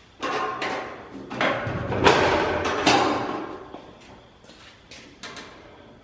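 Bare steel Fox-body Mustang door being fitted on its removable hinges and handled: a run of metal knocks and clunks, loudest with a rougher stretch around the middle, then a few lighter knocks as the door is swung open near the end.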